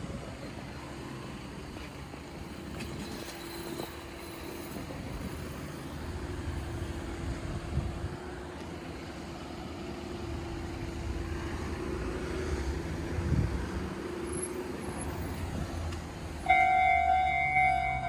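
Road traffic passing on the coastal road beside the railway. About sixteen seconds in, the Enoden level-crossing warning bell suddenly starts ringing as several steady tones, the loudest sound, signalling that a train is approaching.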